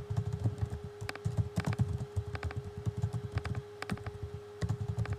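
Typing on a computer keyboard: quick, irregular runs of key clicks with short pauses between them, over a steady hum.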